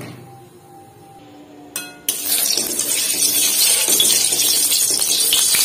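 Hot mustard oil in a kadai sizzling as turmeric is stirred in with a spatula. A short metal clink of the spatula on the pan comes just before a loud, even sizzle starts abruptly about two seconds in.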